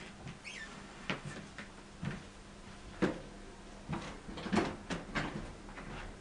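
A series of irregular knocks and clatters, about a dozen, the loudest about three and four and a half seconds in, with a brief falling squeak about half a second in.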